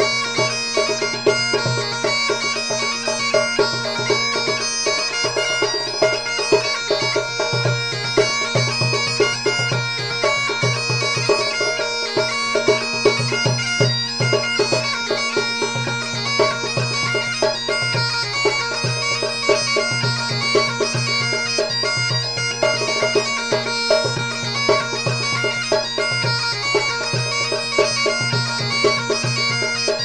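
Background bagpipe music: steady low drones held under a fast, ornamented chanter melody.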